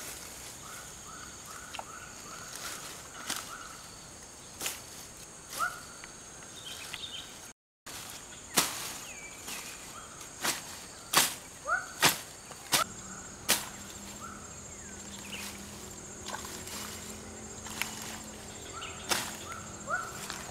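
A sickle slashing through wet grass: a string of sharp swishing strokes at an irregular pace, loudest and quickest about halfway through. A steady high-pitched hum and a few short runs of chirps sound underneath.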